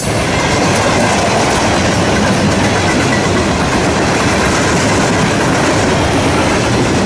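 Freight cars of a CSX garbage train, flatcars carrying waste containers, rolling past at close range: a loud, steady noise of steel wheels running on the rails.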